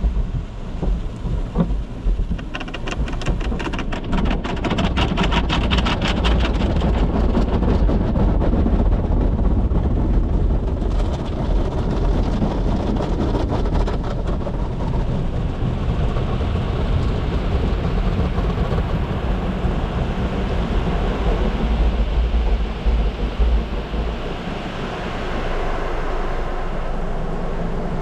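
Inside a car going through a tunnel car wash: water spray and the cloth wash equipment are drumming on the car body, with a low rumble underneath. A fast, dense patter runs from about two seconds in to about eleven seconds in, then gives way to a steadier rush of spray.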